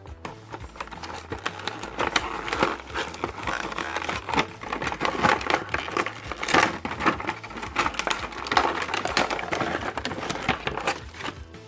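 Packaging being handled during an unboxing: an irregular run of crinkling, rustling and small clicks, louder in several bursts.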